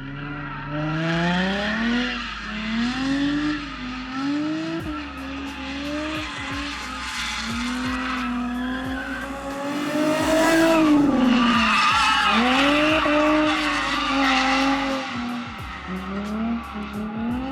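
Nissan 350Z's V6 engine revving up and falling back over and over while drifting, the revs swinging every second or two, with tyres squealing. The revs peak about two-thirds of the way through.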